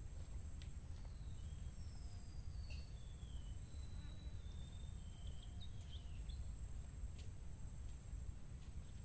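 Outdoor ambience: a steady high-pitched insect buzz, with a few short bird chirps and whistles over the first two-thirds, above a low rumble.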